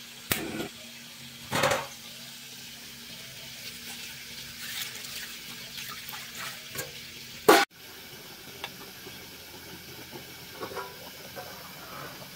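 Gas stove knob clicking, then a short whoosh as the burner lights. After that comes the hiss and light bubbling of a pig's head cooking in a pot of water on the burner, with one loud knock past the middle.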